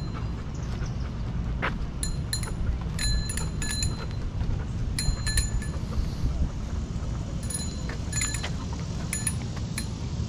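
Metal tags on a dog's collar jingling in short clinks that come in clusters with the dog's steps, over a steady low rumble.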